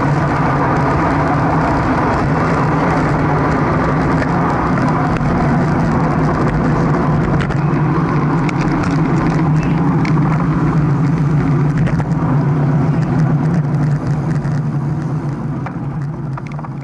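Steady rush of wind on the microphone and road noise from a camera riding along on a racing bicycle among other riders, with scattered light clicks and rattles. It fades away near the end.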